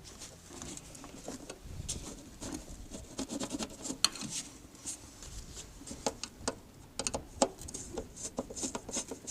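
Irregular light clicks and knocks from objects being handled, over a faint low rumble.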